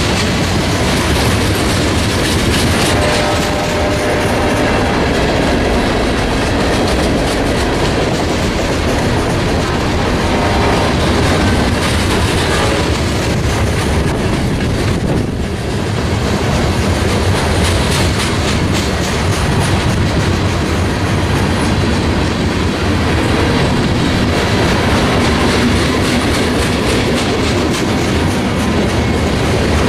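Freight cars of a mixed freight train rolling past at speed: a steady rumble with a rapid clickety-clack of wheels over the rail joints.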